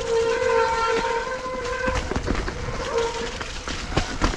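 Mountain bike disc brakes squealing under braking with one steady high tone for about three seconds, fading out, over the knocks and rattles of the bike on rough ground.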